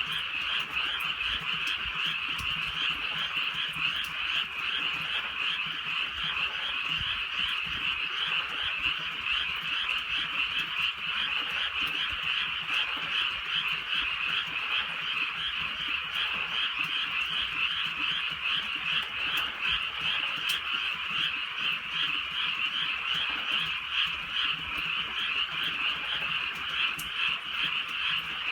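A dense, continuous chorus of many frogs croaking, with faint light rain beneath it.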